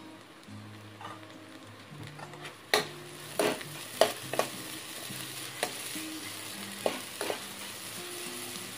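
Chopped onion and garlic sizzling in hot oil in a nonstick kadai. From about three seconds in, a steel spoon stirs them, clinking and scraping against the pan several times.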